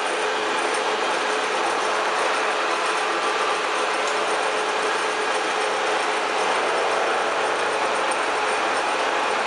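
South Bend Lathe Model 2VH vertical milling machine running: its 3 HP three-phase motor and variable-speed spindle drive give a steady, even mechanical running noise with a faint constant hum.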